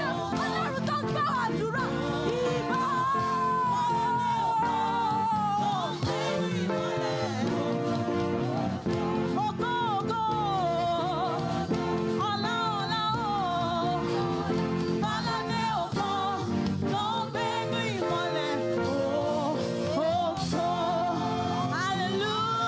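Gospel praise music: a voice singing a wavering melody over sustained keyboard and band chords.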